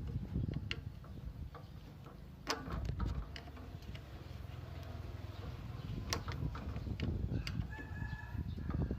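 Chickens calling, with a rooster crowing, over a low steady rumble. A few sharp knocks cut in, the loudest about two and a half seconds and six seconds in.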